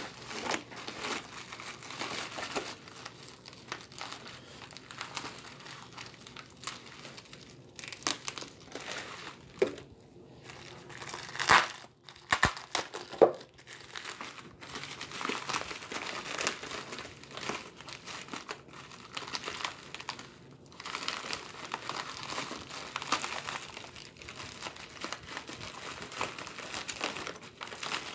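Crinkling and rustling of packing paper and package wrapping being handled and torn open in a cardboard box, with a couple of louder, sharper crackles about halfway through.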